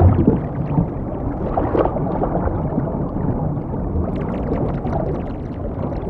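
Underwater ambience: a steady low rumbling wash of water, with faint crackling, bubbling ticks coming in about two thirds of the way through.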